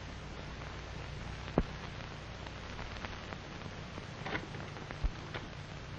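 Surface noise of an old film soundtrack: steady hiss and crackle over a low hum, with a few sharp pops, the loudest about a second and a half in.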